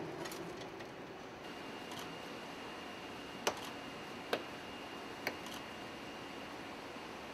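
Car assembly-line ambience: a steady background hiss with a faint, steady high whine from about a second and a half in, and three sharp clicks, each a second or less apart, in the middle.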